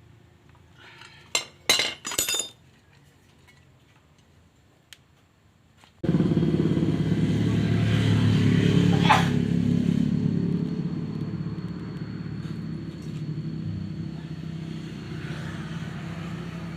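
A few light metal clicks, then about six seconds in a brush cutter's small engine starts running, louder and faster for a few seconds before settling to a lower, steady speed. It is a test run after the cutting head's gear case was reassembled with a new bearing.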